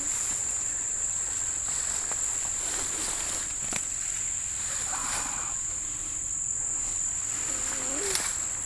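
Insects, most likely crickets, trilling in one steady high-pitched drone, with a sharp click a little before the end.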